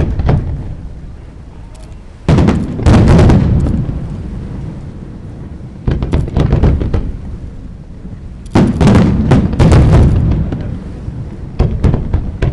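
Fireworks display going off in several volleys of rapid bangs and crackles, each volley trailing off slowly.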